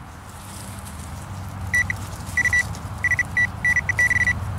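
Metal detecting pinpointer beeping as it is probed through loose soil over a buried target, the beeps coming in short bursts that quicken into a rapid string near the end as it closes in on silver coins. A low rumble runs underneath.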